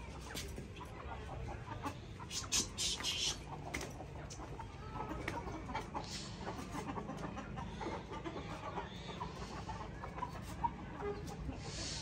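Domestic hens and roosters clucking as they are shooed toward their coops, with a few short scuffling noises about two and a half to three seconds in.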